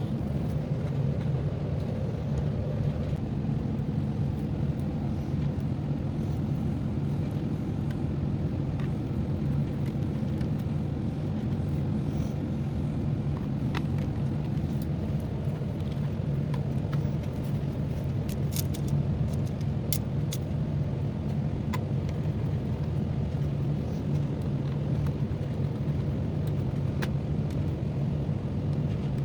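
Steady low background rumble, with a few faint light clicks scattered through it.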